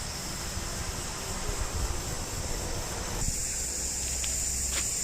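A steady, high-pitched insect chorus over a low rumble of wind on the microphone. About three seconds in the background changes abruptly and the insect hiss becomes louder, with a couple of faint clicks near the end.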